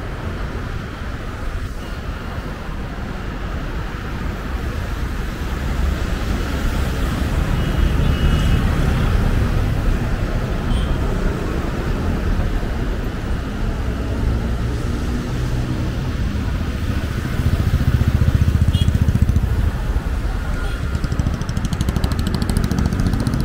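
Street traffic: motorcycle and car engines running and passing, with the low engine rumble swelling twice, about a third of the way in and again after the middle.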